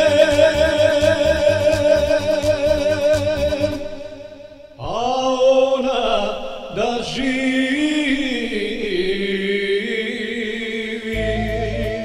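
Electronic keyboard playing an instrumental interlude: a wavering, vibrato lead melody over bass and a beat. The music dips briefly about four and a half seconds in, then a new phrase starts.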